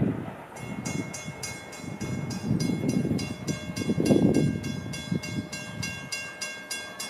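Railroad grade-crossing warning bell that starts ringing about half a second in, about four strokes a second, over an uneven low rumble.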